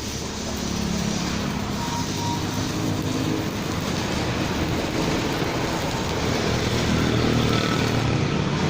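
Stick-welding arc from a Jasic ARES 120 inverter welder burning a continuous bead, a steady, even sound that is very smooth (êm), the sign of a stable arc.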